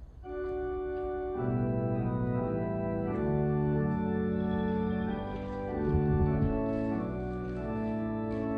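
Church organ starting to play sustained chords, with a low bass line coming in about a second and a half in.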